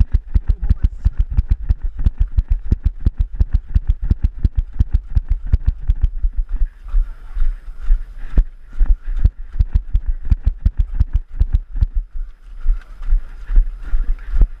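Footfalls of someone running, a steady thudding about three to four times a second that grows less even about halfway through.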